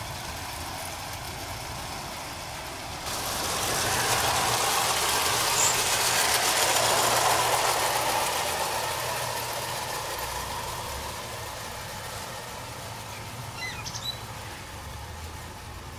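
Hornby O gauge clockwork tinplate goods train running on the rails: a steady metallic rattle and whirr of wheels and clockwork motors. It jumps up suddenly about three seconds in, is loudest as the wagons pass close by, then fades steadily as the train runs away into the distance.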